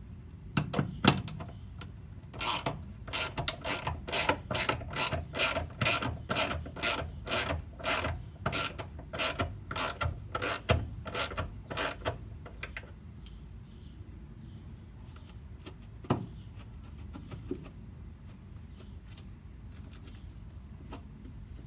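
Socket ratchet clicking in a steady run of about three clicks a second as a 10 mm bolt on the ignition coil bracket is worked. The clicking stops about twelve seconds in, with one more sharp click a few seconds later.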